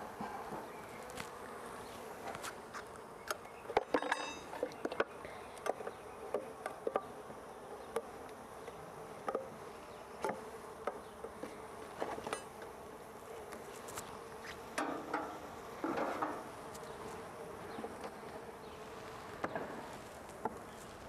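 Package honeybees buzzing in a steady hum, with scattered clicks and knocks throughout, the loudest cluster about four seconds in and another around fifteen to sixteen seconds in.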